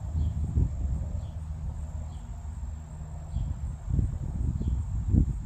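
A steady, high-pitched insect trill, like crickets, with faint short chirps repeating about every second, over a louder, uneven low rumble.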